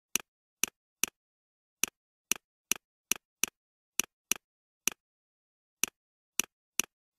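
Computer mouse clicking: about fourteen short, sharp clicks at uneven intervals, with dead silence between them.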